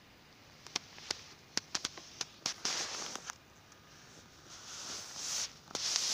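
Handling noise of small polished chiastolite stones on a cloth: a run of sharp clicks in the first couple of seconds, then rustling that grows louder toward the end.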